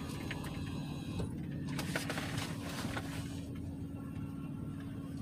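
Steady low hum of a running vehicle engine, with a few faint clicks over it.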